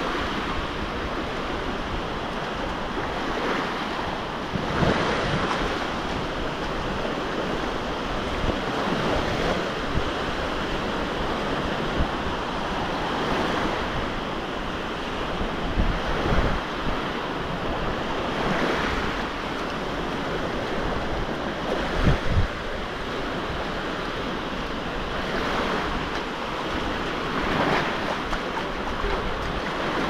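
Black Sea waves breaking and washing onto the beach, surging every three or four seconds over a steady wash, with wind rumbling on the microphone.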